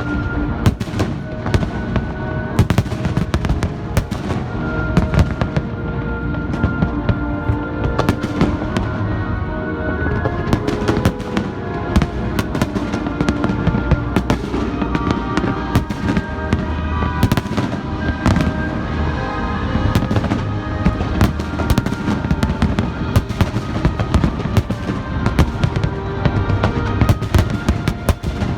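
Fireworks going off in rapid, continuous volleys of bangs and crackles, with music playing underneath.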